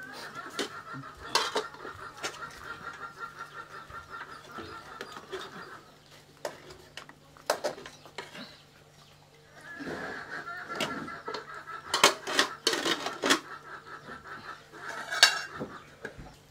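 Metal spoon and lids clinking against aluminium pots and plates as rice is dished out, with several sharp clinks. Behind them a rapid, high pulsing call runs for several seconds twice, first at the start and again from about ten seconds in.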